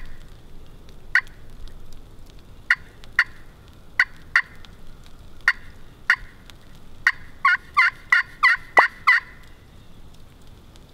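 Wild turkey calling: single sharp clucks spaced about half a second to a second apart, then a quicker run of about eight yelps lasting around two seconds near the end.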